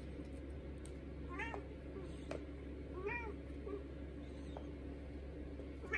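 Domestic cat meowing twice, two short calls nearly two seconds apart.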